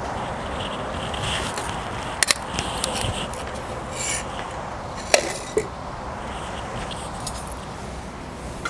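Dishes and utensils handled: a few short scrapes and sharp clicks over a steady background hiss.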